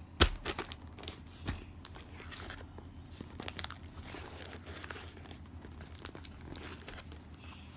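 Plastic parcel packaging crinkling and rustling as it is handled for opening, with scattered clicks. A sharp knock just after the start is the loudest sound, and a smaller one follows about a second later.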